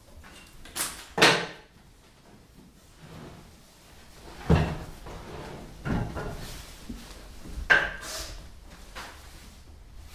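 Wooden blocks knocked and scraped against the top of a wooden plinth: a handful of separate loud knocks and short scrapes, a second or two apart.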